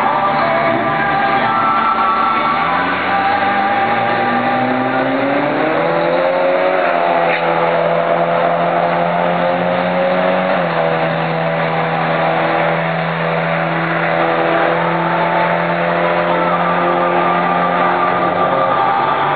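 Drag cars launching off the start line and accelerating hard down the strip: engine pitch climbs steadily for several seconds, then holds, with a sudden drop about halfway through. Music plays in the background.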